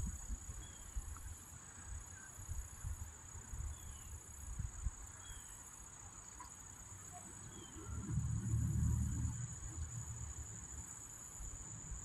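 Insects trilling steadily on one high pitch, with faint short chirps now and then. A low rumble comes in about eight seconds in and fades out over the next two seconds.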